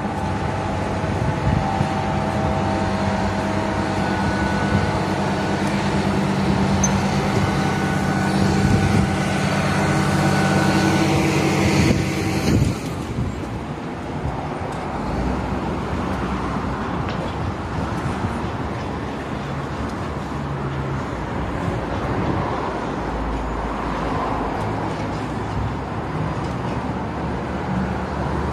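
Diesel engine of a mobile crane running steadily at a construction site. About 13 seconds in it stops abruptly and gives way to quieter, shifting traffic noise with an occasional low engine hum.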